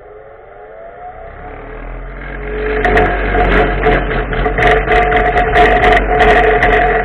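Electric motor of a homemade sharpening machine spinning up, rising in pitch and loudness for the first two seconds or so. It then runs at steady speed, with irregular scratchy grinding noises over the hum.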